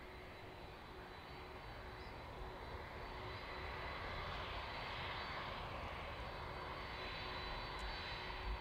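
Aircraft engine noise at a distance, growing louder over the first few seconds and then holding steady, with a faint steady whine.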